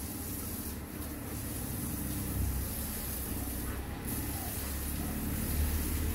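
Water from a garden hose spraying onto wet paving tiles, a steady hiss, over a steady low rumble.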